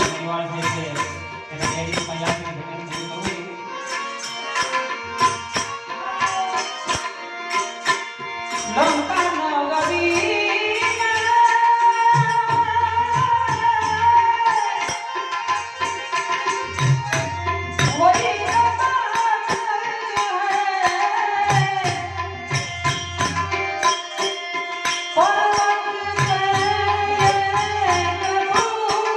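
Gujarati santvani devotional folk music. A drum and percussion keep a steady rhythm, and a singer comes in about nine seconds in with long held notes that slide up into pitch.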